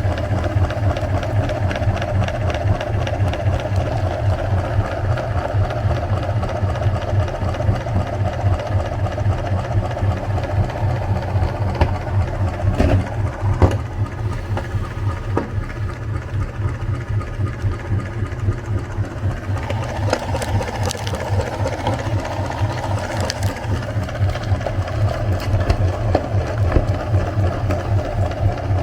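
Electric meat grinder running steadily, its motor giving a low hum with a fast, even rattle, and a few sharper clicks partway through.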